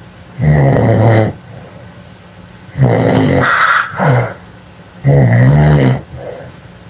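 Loud snoring: three snores about two and a half seconds apart, each a low, pitched drone of about a second.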